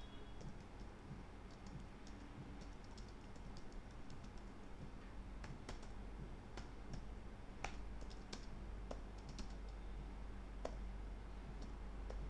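Faint typing on a computer keyboard: irregular keystroke clicks, sharper and more distinct from about five seconds in.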